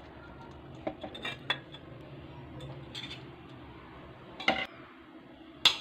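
Steel spoon clinking and scraping against an aluminium pressure cooker and a steel plate while curry is served: a handful of short, sharp clinks, the loudest two near the end.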